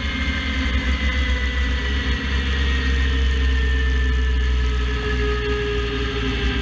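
Drag car running at speed, heard from under the car at the rear axle: a heavy low rumble with a thin whine that falls slowly in pitch.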